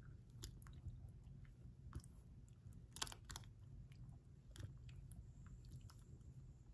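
Faint, scattered clicks and small knocks as a hand stirs blueberries in water in a glass bowl, berries and fingers tapping the glass, with one sharper click about three seconds in. A low steady hum lies underneath.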